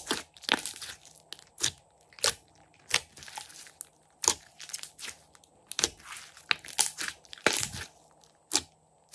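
Thick purple slime being squeezed and kneaded by hand, giving about twenty sharp pops and clicks at irregular intervals as it is pressed and pulled.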